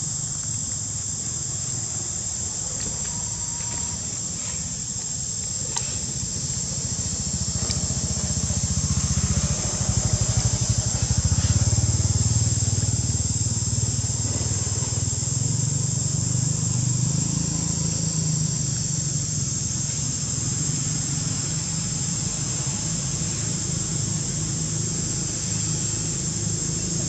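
Outdoor ambience: a steady high-pitched insect drone over a low rumble that swells in the middle and eases off again.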